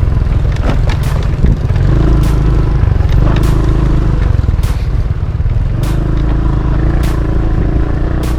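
Motorbike engine running under way on a rough dirt track, with a steady low rumble.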